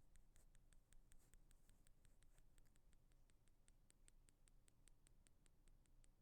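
Ear pick scraping against an in-ear earphone microphone: a faint, steady run of quick, crisp scratches, about seven a second.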